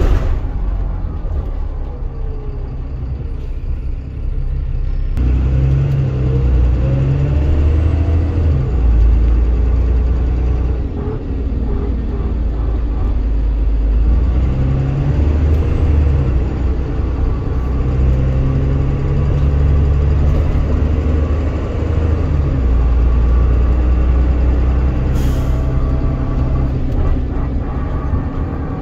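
Dennis Trident 2 double-decker bus driving, heard from the upper deck: a deep engine rumble with a gear whine that rises in pitch as it accelerates, getting louder about five seconds in.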